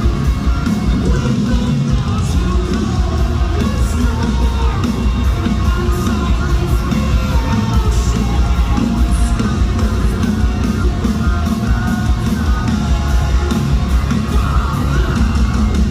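Live metalcore band playing loud distorted music with drums and screamed vocals.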